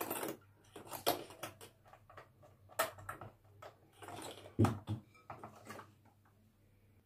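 Electric hand mixer whipping instant coffee, sugar and cold water into foam in a glass bowl: the beaters tap and scrape against the glass in irregular clicks over a faint low motor hum. It goes quiet about a second before the end.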